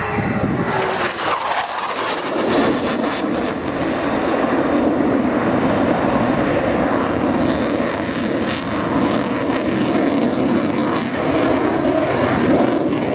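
Eurofighter Typhoon's twin EJ200 turbofan engines: loud, steady jet noise from the fighter flying its display, swelling over the first few seconds and then holding.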